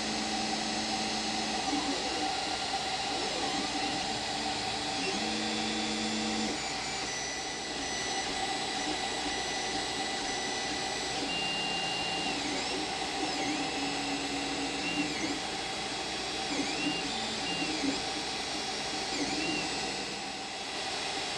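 Creality CR-10 3D printer running: a steady whir from its cooling fans, with the stepper motors whining in short tones that jump and glide in pitch as the print head moves.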